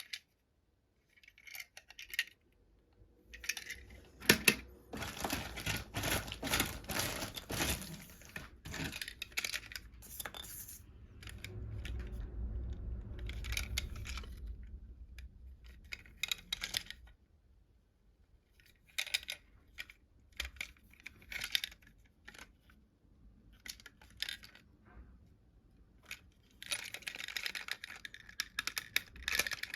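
Plastic toy train cars and their packaging being handled: irregular clicks, light knocks and rattles with some rustling, densest from about four to nine seconds in and again near the end.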